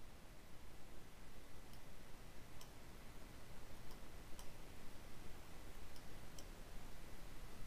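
Faint computer mouse clicks, about six single clicks spread a second or so apart, the last two close together, over low steady room noise.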